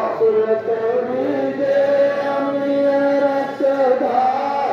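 A group of devotees chanting a prayer together in unison, in long, drawn-out sung notes.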